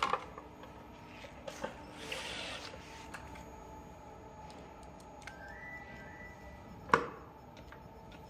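Scattered clicks and knocks of hand work on an electric chopper scooter's front fender and fork with a cordless drill-driver in hand, with one sharp knock about seven seconds in.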